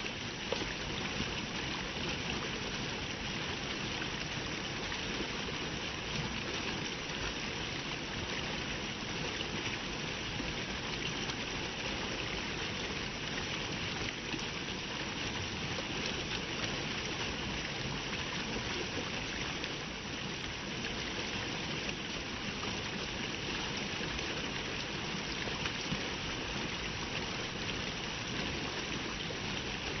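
Small woodland stream rushing and splashing as it tumbles over a low step between roots and stones, a steady, even rush of water with no break.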